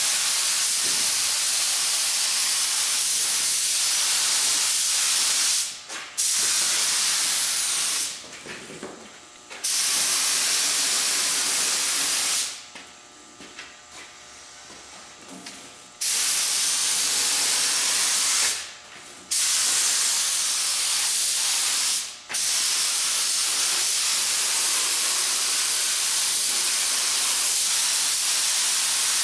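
Compressed-air spray gun hissing as it sprays etching primer onto a chrome grille. The trigger is held in long passes and let off five times, the hiss cutting out and starting again each time, with the longest break of about three seconds near the middle.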